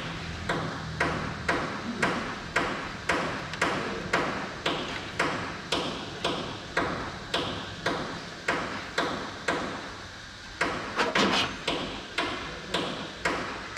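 A steady, even knocking, about two sharp knocks a second, each dying away quickly, going on without a break.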